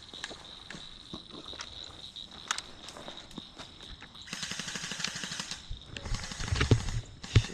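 Rustling and footsteps of a player moving through brush in the middle of an airsoft game, growing heavier with low thumps in the second half. Scattered sharp clicks, one loud one near the end, sit over a steady high tone.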